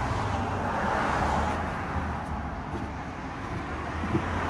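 Road traffic passing close by: the noise of a vehicle swells and fades about a second in, over a low steady rumble.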